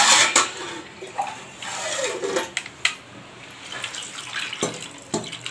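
Water poured from a steel vessel into an aluminium pressure cooker holding sautéed mutton bones, loudest in the first moments, with a few clicks of metal against the pot.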